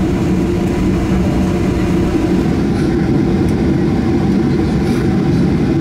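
Steady low drone inside the cabin of a Boeing 737-800 at the end of its taxi to the gate, with an even hum and no change in level.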